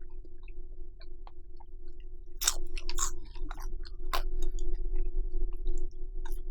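Close-miked chewing of bacon-wrapped rice cakes: wet mouth clicks and crackles, louder about two and a half seconds in, over a steady low hum.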